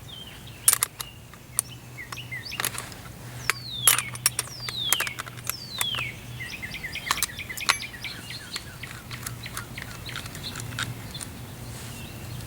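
Birds calling with falling whistled notes and quick chirps, over a steady low hum, mixed with scattered sharp clicks and knocks as a wrench and the saw are handled to loosen the bar nuts.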